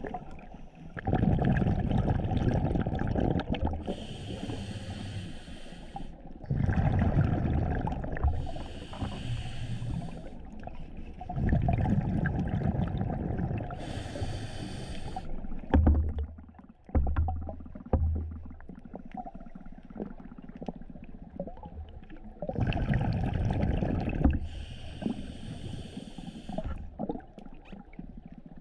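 Scuba diver breathing through a regulator underwater. Four breaths, each a low burble of exhaled bubbles followed by the hiss of the next inhalation. There is a gap of several seconds past the middle, with a few low thuds.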